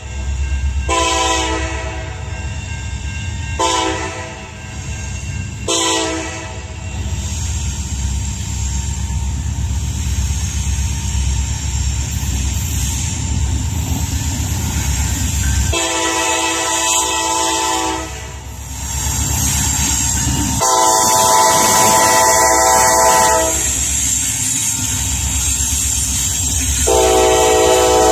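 Norfolk Southern diesel locomotive horn sounding a series of blasts as the freight train approaches: a long blast and two short ones early on, then three long blasts, the loudest in the second half. A steady low engine rumble runs underneath and grows as the locomotives arrive near the end.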